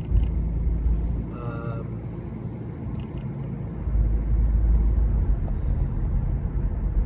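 Steady low rumble of a moving vehicle, easing for a few seconds in the middle, with one brief pitched tone about a second and a half in.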